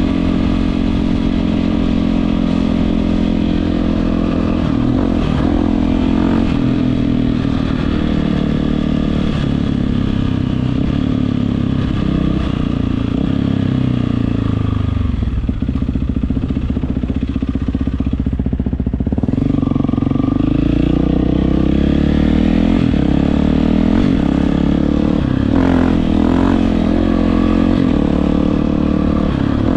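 Yamaha WR450F single-cylinder four-stroke engine running through an Akrapovic exhaust, its revs rising and falling with the throttle. About halfway through the revs drop away, then climb again a few seconds later.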